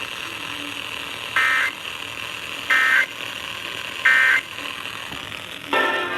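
Emergency Alert System end-of-message signal: three short, loud buzzy digital data bursts about a second and a half apart, marking the end of the alert. They play over a steady hiss, and other programme audio cuts in near the end.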